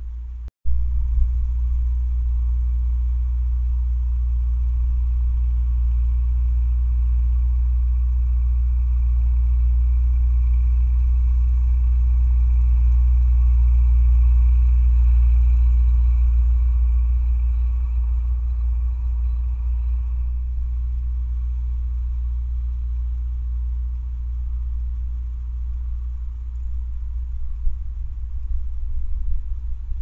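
Massey Ferguson tractor and its rotary cutter running as it mows the field: a steady low engine drone that grows loudest around the middle as it passes close, then eases off. The sound drops out for an instant about half a second in.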